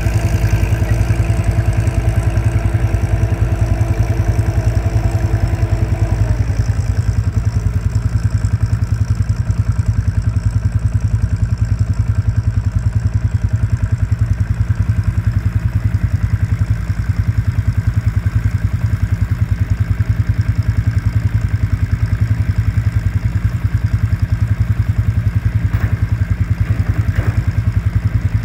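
John Deere tractor engine running steadily, with a steady whine over it that stops about six seconds in.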